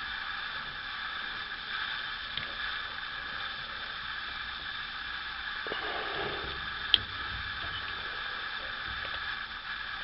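Small handling sounds of wires being fitted to a draft fan's terminals, with one sharp click about seven seconds in, over a steady hiss.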